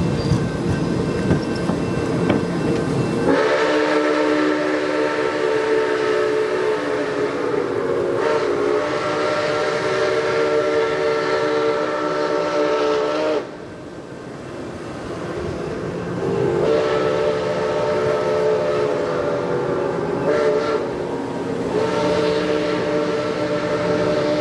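Passenger cars rolling past with a steady wheel rumble and clatter. From about three seconds in, the whistle of Nickel Plate Road 765, a 2-8-4 Berkshire steam locomotive, sounds a chord of several notes in one long blast of about ten seconds, then two shorter blasts in the second half.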